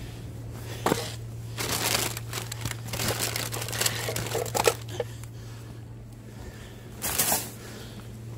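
Plastic litter being picked up and crumpled by hand: irregular bursts of crinkling and rustling about a second in, through the middle stretch, and again briefly near the end.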